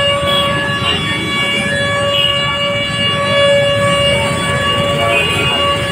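A vehicle horn held in one long, steady, high note over street traffic and crowd noise.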